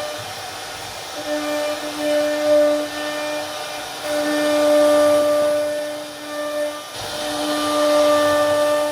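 CNC router spindle running with a steady whine while the bit carves wood. The loudness swells and eases every few seconds, and the whine drops out briefly three times.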